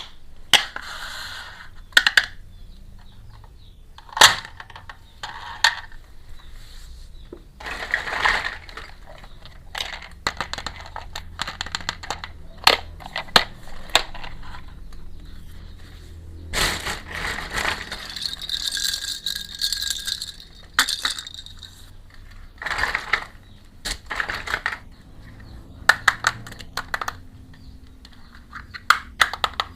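Miniature toy kitchen pieces being unboxed and handled: a run of sharp clicks and clinks as small pieces are set down and knocked together, broken by several longer stretches of rustling.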